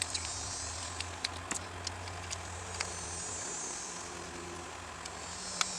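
Light clicks and taps of small carburetor parts being handled and fitted, over a steady low hum, with soft hissing that comes and goes near the start, in the middle and near the end.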